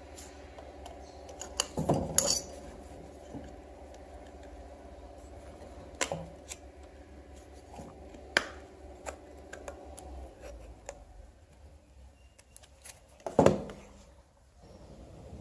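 Screwdriver clicking and scraping against the plastic bulb holder of a metal touch-lamp base, in scattered sharp clicks, with a louder knock near the end as the metal lamp base is set down on the table. A steady low hum runs underneath.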